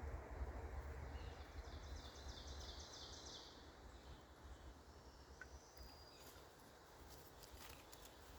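Quiet outdoor ambience: a steady soft hiss with a low rumble that fades over the first few seconds, and a brief rapid chirping trill about a second in.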